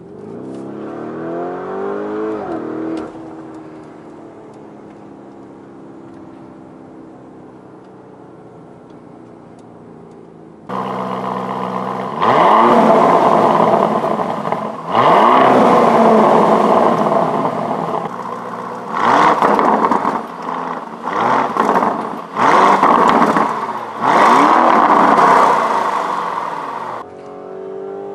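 Lamborghini Urus twin-turbo V8: first accelerating and then cruising, heard from inside the cabin. About ten seconds in it switches abruptly to the exhaust heard from behind the standing car, revved hard several times, each rev climbing and dropping back. Near the end it is back in the cabin, accelerating.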